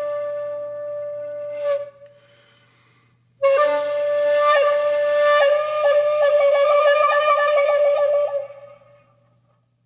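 Outro music on a flute-like wind instrument. A long held note breaks off about two seconds in. After a short pause a second long note turns into a fast warbling trill, then fades out near the end.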